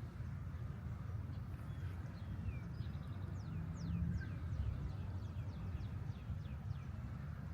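Birds singing outdoors: a run of quick, high whistles that each fall steeply in pitch, coming several a second from about two and a half seconds in. Under it runs a steady low rumble.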